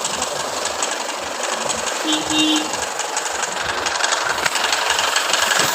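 A vehicle engine running with a rapid, steady clatter. A brief double beep comes about two seconds in.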